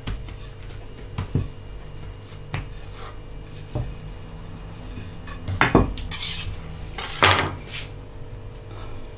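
Light knocks of a wooden rolling pin on a floured marble slab and clinks of a round metal cake tin as shortcrust pastry is laid into it, with two louder clatters in the second half. A steady low hum runs underneath.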